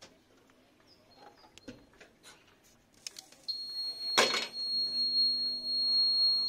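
Boiled-corn vending machine in operation: a steady high-pitched whine starts about halfway through, a single knock sounds just after it, and a low motor hum joins. Whine and hum run for about three seconds and cut off sharply together. A few faint clicks come before.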